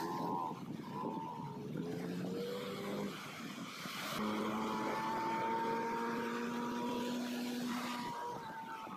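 Outboard motor of a small speedboat running, a steady engine hum towing an inflatable banana ride, over the wash of water and wind. Its pitch climbs slightly in the second half.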